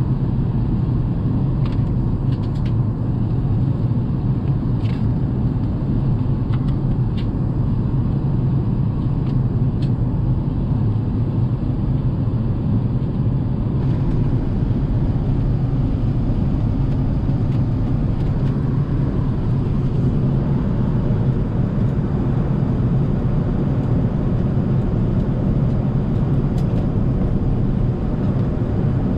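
Steady low rumble of an Airbus A380's cabin in cruise flight: engine and airflow noise, strongest in the low range, with a few faint clicks in the first ten seconds.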